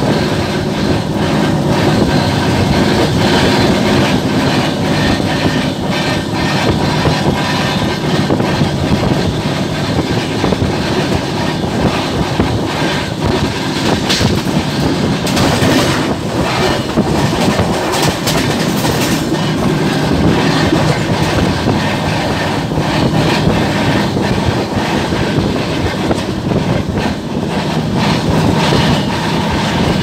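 Passenger train running at speed, heard from an open coach doorway: a steady loud rush of rolling noise with the wheels clicking over rail joints.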